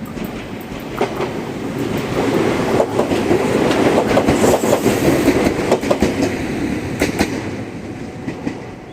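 Ryutetsu 5000 series two-car electric train passing close by, its wheels clacking over the rail joints. The rumble builds to a peak about halfway through and then fades as the train goes by.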